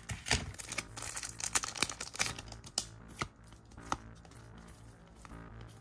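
A trading-card pack being opened and its cards handled: a dense run of crackly clicks and tearing for the first two and a half seconds, then a few single clicks.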